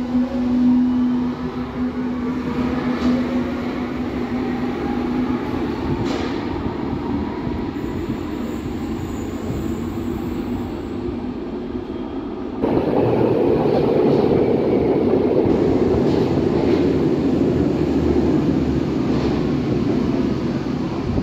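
Berlin U-Bahn train pulling out of an underground station, its traction motors giving a steady whine that fades over the first five seconds. Just past halfway the sound jumps to the louder running noise of another U-Bahn train rolling in along the platform.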